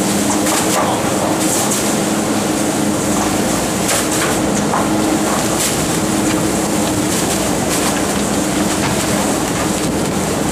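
Hino Dutro rotary-plate garbage truck compacting: a steady machine hum from the truck's running engine and hydraulic drive as the rotating packer plate sweeps plastic rubbish bags into the body, with scattered cracks and crunches from the bags and plate.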